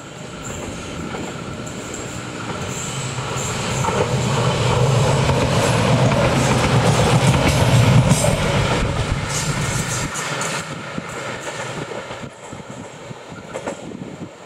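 Diesel railcar train passing on the track: the engine's low hum and the rumble of its wheels on the rails build to a peak about eight seconds in, then fall away.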